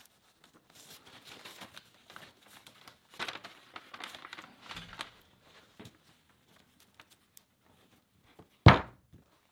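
Handling noises as string is worked around a shield for clamping: rustling and scraping for the first few seconds, then one loud, sharp knock near the end.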